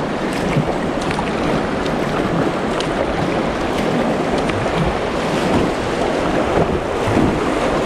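Rushing whitewater of a class II river rapid heard from a kayak on the approach to the drop: a steady, loud rush with a few light splashes.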